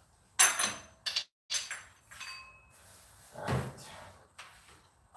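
Metal hand tools clanking: a few sharp clinks that ring briefly, the loudest about half a second in, then a duller knock a little past the middle.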